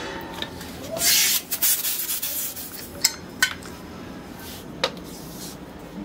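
Refrigerant gas hissing briefly from a brass gauge manifold and charging hose about a second in, while a refrigerator is being charged with gas. Scattered sharp clicks and taps of metal fittings being handled follow, with a softer hiss about five seconds in.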